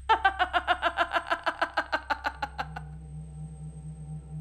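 A woman laughing: a long run of quick 'ha' pulses, about eight a second, loud at first and trailing off after about two and a half seconds. A low steady hum comes in as the laugh fades.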